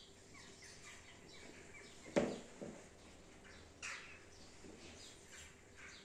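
Small birds chirping faintly in the background, many short falling chirps. A thump about two seconds in and a sharper click near four seconds stand out above them.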